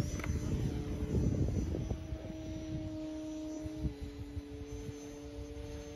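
Electric motors and propellers of two RC model airplanes droning overhead as two steady tones, one dropping slightly in pitch about four seconds in, with a faint high whine above. A low wind rumble on the microphone lies underneath.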